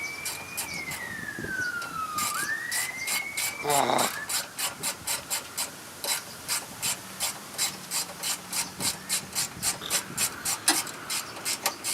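A siren wails, gliding up and down in pitch, and fades out about four seconds in. It gives way to a regular series of short rasping strokes, about three a second, from hand work on the truck.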